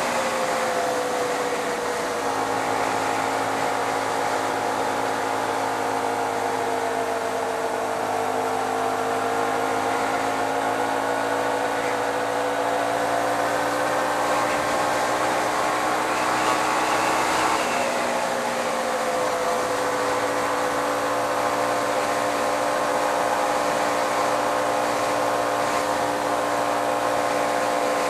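Hyosung GT125R's 125 cc V-twin engine running under way, with wind rushing over the microphone. The engine note drifts slowly, climbs a little past the middle, then drops sharply about two thirds of the way through and holds steady.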